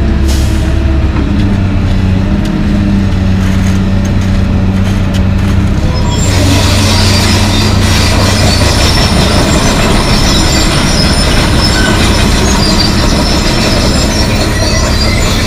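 Komatsu PC220LC excavator's diesel engine running steadily. From about six seconds in, a loud grinding of steel crawler tracks with high squeals joins it as the machine moves.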